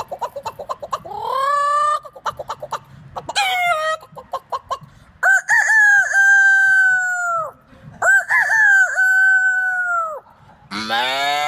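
A man imitating a chicken with his mouth: quick repeated clucks, then two long rooster crows that tail off at the end. A lower, longer call begins near the end.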